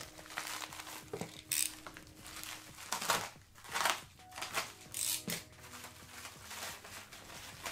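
Packaging crinkling and rustling in short, irregular bursts as it is handled and pulled apart, checked for hidden coins.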